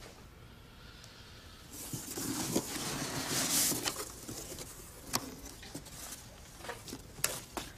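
Cardboard box being opened by hand: the flaps rustle and scrape for a couple of seconds, followed by a few light knocks and taps.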